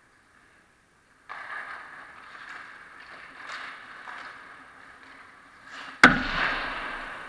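Skates scraping on the ice rink surface. About six seconds in there is one loud sharp crack with a short ring after it: a hockey puck shot striking the goal or the goalie's pads.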